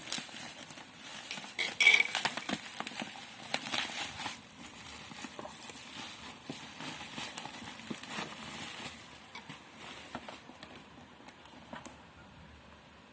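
Packaging being handled during an unboxing: scattered knocks, taps and rustling, busiest at first and dying away to quiet near the end.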